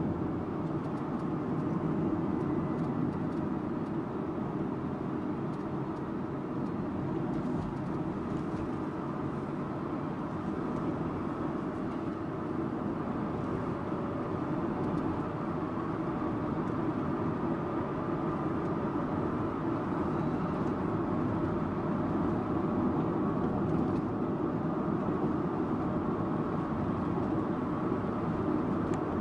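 Subaru Impreza Sports Wagon (GG2) driving along at a steady pace: a constant mix of engine hum and tyre and road noise, with a few faint ticks.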